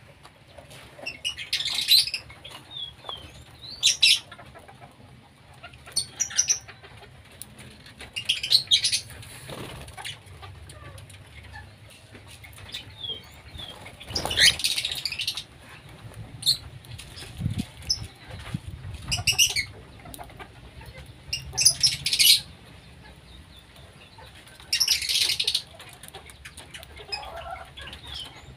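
Cockatiels in an aviary fluttering their wings around a seed dish, with loud, short harsh bird sounds every two to three seconds over a low steady hum.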